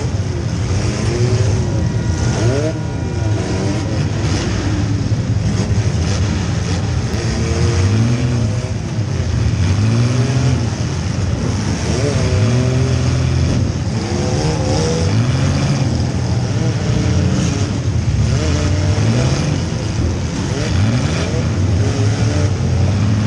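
Compact demolition-derby car's engine, heard from inside the car, revving up and falling back again and again.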